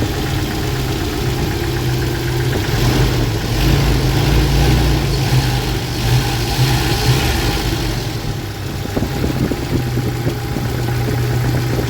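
Jeep Wrangler YJ's AMC 150 2.5-litre inline-four idling steadily under the hood, with a brighter hiss over it for a few seconds in the middle.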